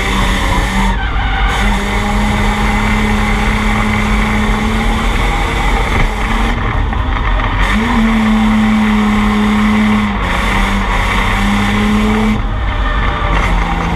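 Drift car's engine held at high revs in a steady note that breaks off briefly several times and climbs back, over the hiss of tires skidding.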